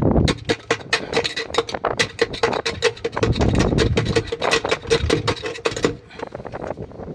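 Rapid scraping and clicking strokes, several a second, over a low rumble, as a washing machine tub is scrubbed; the strokes ease off about six seconds in.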